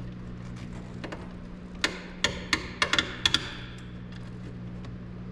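Sharp clicks and taps, a quick cluster of about eight in under two seconds starting about two seconds in, as a wire's retaining clip is worked loose from the truck's fuse block by hand. A steady low hum runs underneath.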